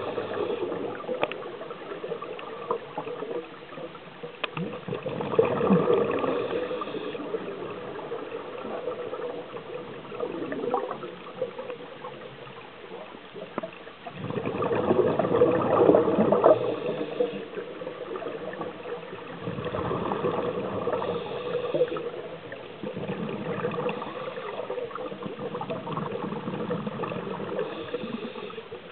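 Scuba breathing heard underwater: bursts of bubbles gurgling from a regulator's exhaust every few seconds over a steady underwater wash, the loudest bursts about five and fifteen seconds in.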